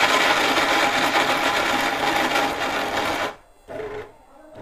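Orpat 1200-watt mixer grinder's motor and blades running at full speed, mincing chunks of raw meat with a little water in a stainless steel jar. It runs for about three seconds, then cuts off suddenly as it is switched off.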